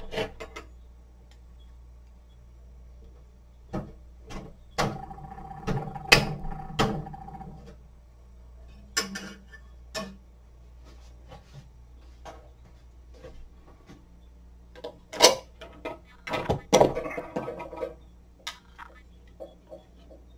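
Kitchen clatter during cooking: irregular knocks and clinks of utensils and cookware, with a short held tone around six seconds in and a faint low hum underneath.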